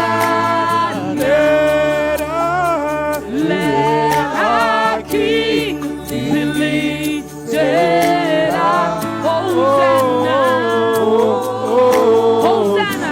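Worship team singing in spontaneous worship, several voices wavering and gliding over sustained low chords that change a few times.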